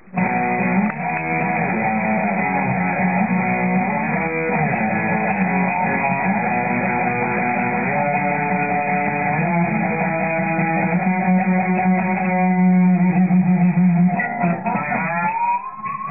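Electric guitar playing held chords and notes, with string bends that glide in pitch near the end.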